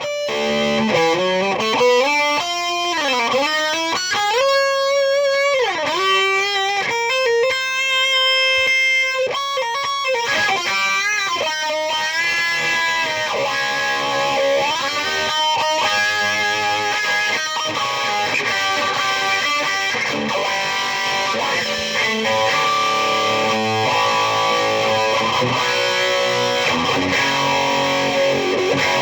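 Distorted electric guitar played through a high-gain tube amplifier and speaker cabinet. Over the first ten seconds, long sustained notes bend and slide up and down in pitch, then it moves into quicker, busier runs of notes.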